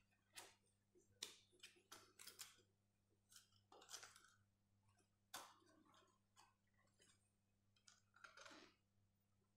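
Faint scratching of a ballpoint pen drawing short straight lines on paper: about a dozen brief strokes at irregular intervals, over a steady low hum.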